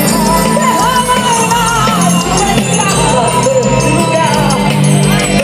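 Live Christian worship music played through a sound truck's loudspeakers: a sung melody over a band with steady bass and percussion.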